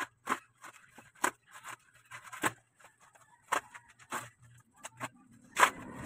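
Black plastic parcel wrap crinkling as it is pulled by hand and cut with a knife: irregular short rustles and rips, with a longer, louder tear about five and a half seconds in.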